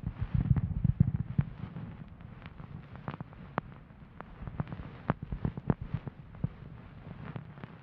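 A bonten ear-pick puff brushing and rubbing inside a binaural microphone's ear, giving a low, close rustle with many sharp crackling ticks. The rubbing is heaviest in the first second and a half, then continues lighter with scattered crackles.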